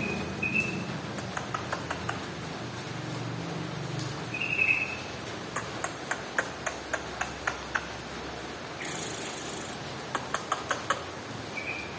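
Yellow-vented bulbul (trucukan) giving three short high chirps, one near the start, one about four and a half seconds in and one near the end, among runs of sharp clicking ticks.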